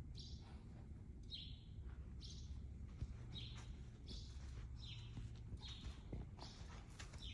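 A small bird chirping over and over, short high calls about once a second, over a faint steady low rumble.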